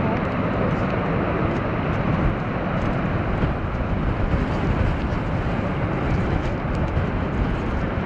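Steady rushing roar of the Lower Falls of the Yellowstone River and the whitewater below it.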